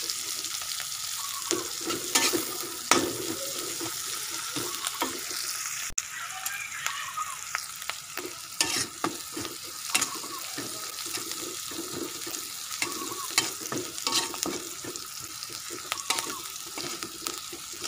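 Sliced chilies, garlic and shallots sizzling in hot oil in a wok while being stir-fried until the chilies wilt. A metal spatula scrapes and clicks against the pan at irregular moments.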